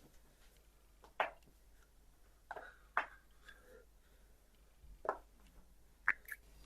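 A person's spinal joints cracking during a self-adjustment of the neck and back: about six short, sharp pops at uneven intervals.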